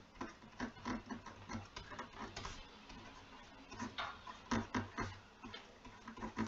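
Stylus writing by hand on a tablet or pen display: irregular light taps and scratches as letters are drawn, a little louder about four and a half seconds in.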